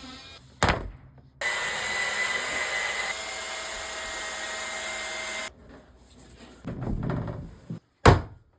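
A sharp knock, then a power tool running steadily for about four seconds and stopping suddenly. Two more sharp knocks come near the end.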